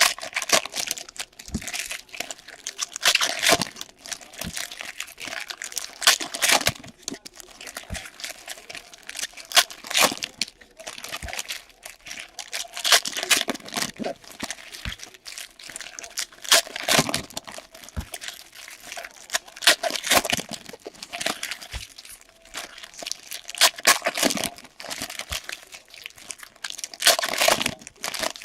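Plastic wrapping of trading card packs being crinkled and torn open by hand, an irregular run of crackling rustles and short rips every second or so.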